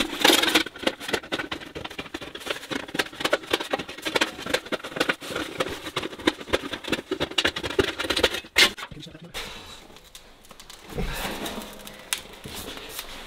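Sheet-metal stovepipe being worked by hand: a dense run of quick clicking and rattling that eases off about nine seconds in, followed by a dull thump.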